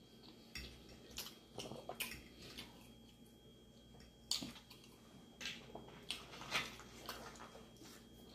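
Faint eating sounds: a fork clinking and scraping against a plate, with short clicks scattered every second or so, and quiet chewing.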